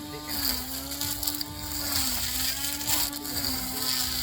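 Battery-powered electric grass cutter's motor running with a steady hum, its pitch dipping slightly about every second and a half.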